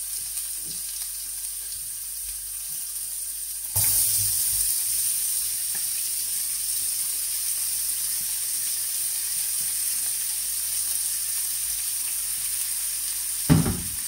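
Hot vegetable oil with garlic-pepper paste sizzling in a frying pan. About four seconds in, chopped onion is tipped in and the sizzle jumps louder, then fries on steadily. There is a short knock near the end.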